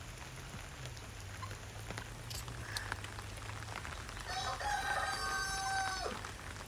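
A large fowl gives one long crowing call, about two seconds long, held level and dropping in pitch at the end.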